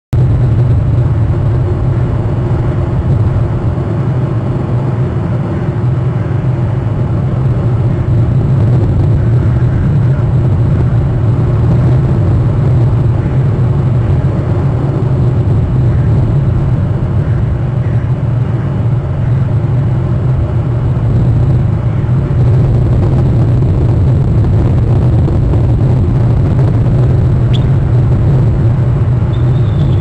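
Steady low rumble from an outdoor webcam microphone, with a few faint short high sounds near the end.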